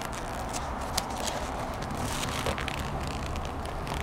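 Handling noise of a leather focus mitt being turned over close to the microphone: faint rustles and a few light taps over a steady background hum.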